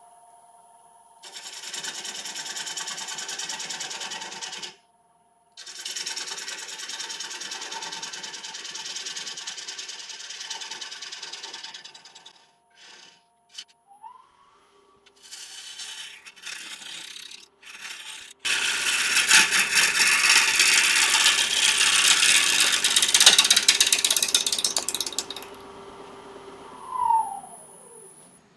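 Wood lathe spinning a laburnum blank while a gouge cuts away soft, punky wood in several passes, the scraping cut noise starting and stopping; the longest and loudest pass runs for about seven seconds in the second half. Near the end a whine drops in pitch as the lathe slows down.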